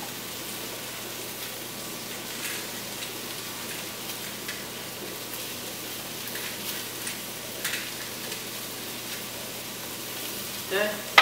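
Chopped carrots, celery and onions frying in an enameled cast-iron Dutch oven: a steady sizzle with a few faint crackles.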